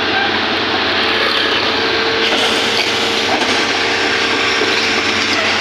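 Hitachi excavator running, its engine noise steady and loud, with metallic rattling and clanking from the machine's moving parts.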